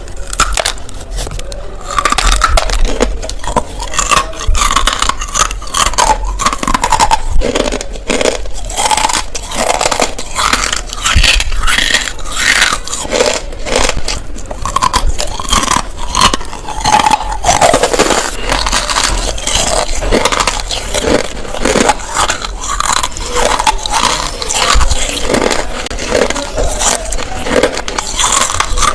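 Close-up crunching as someone bites and chews dry clay chunks coated in multani mitti (fuller's earth) powder. It comes as a steady run of irregular crisp cracks and gritty scraping.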